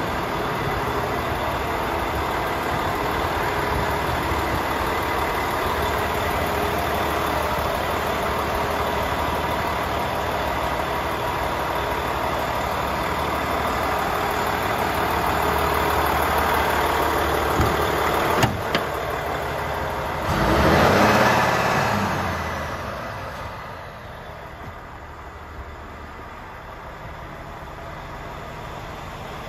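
Volvo FH 500's 13-litre straight-six diesel idling steadily. About two-thirds through there is a sharp click, then a loud short rush of noise. After that the idle continues quieter and muffled, heard from inside the cab.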